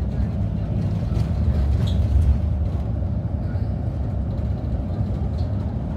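Inside a moving bus: a steady low engine and road-noise rumble, with a few faint clicks and rattles about one and two seconds in.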